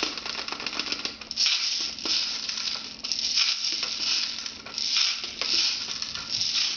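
Plastic airsoft BBs poured into the loading tube of a spring-powered airsoft pump shotgun, a gritty rattling of many small pellets that comes in repeated bursts as they run down inside the gun.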